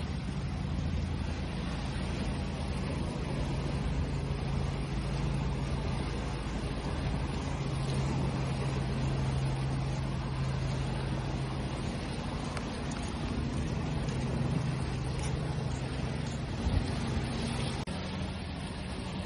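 Sea waves washing in a steady wash of noise, with a low, steady motor hum underneath. A brief knock comes near the end.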